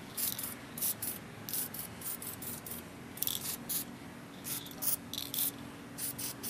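Aerosol can of flat black camouflage spray paint hissing in a string of short bursts as a first coat is sprayed onto AR-15 magazines.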